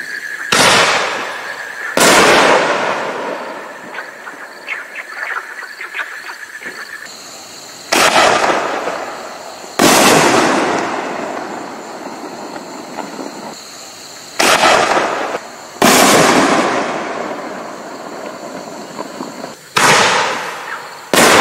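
Rainfire 5-inch fireworks shells fired one after another: four times a launch bang is followed about a second and a half later by the shell bursting overhead, each burst dying away slowly. After the first burst there is faint crackling.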